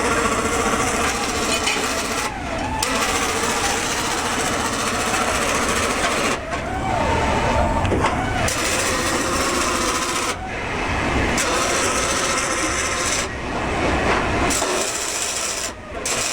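Automated bumper welding line running: a steady crackling, rasping welding noise with wavering machine whines over it. The sound changes abruptly several times, as from one part of the line to another.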